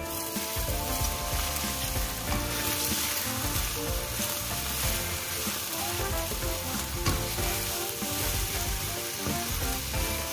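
Egg and shrimp frying in oil in a nonstick wok, sizzling steadily while a spatula stirs and breaks up the omelette.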